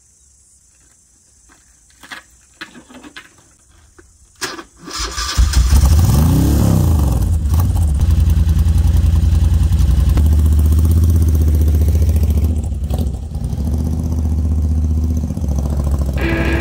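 Moto Guzzi V-twin motorcycle being started: a few clicks, then the engine catches about five seconds in. It is blipped once, rising and falling in pitch, then keeps running steadily as the bike pulls away.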